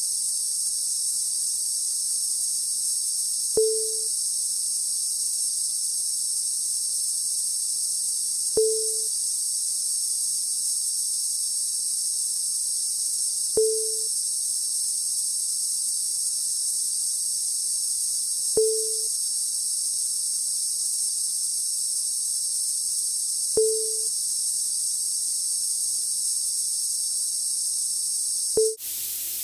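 Cicada-like electronic noise: a steady high-pitched buzz over a faint low hum, with a short blip about every five seconds. Near the end it cuts off suddenly and a steady hiss of CRT flyback noise begins.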